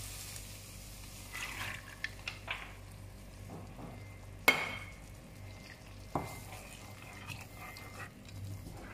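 Wooden spatula stirring and scraping in a nonstick wok as soaked chana dal is added to a sizzling tomato masala, with scattered clicks of the spatula against the pan and one sharp knock about halfway through.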